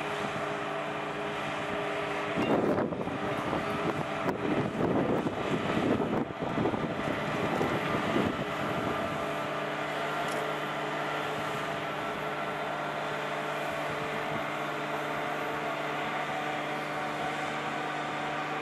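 Mobile crane's diesel engine running steadily under load while it holds a tower-crane jib aloft. From about two seconds in to about nine seconds a louder, rough, uneven noise rises over it, then the steady running returns.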